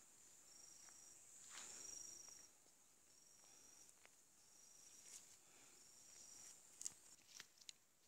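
Faint insect chorus: a steady high-pitched buzz with a short, high chirp repeating about once a second. A few faint clicks come near the end.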